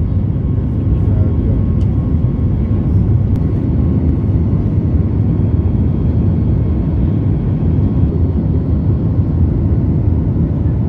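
Jet airliner's engines and rushing air during the climb just after takeoff, heard inside the cabin by the wing: a loud, steady, low rumble with a faint steady whine above it.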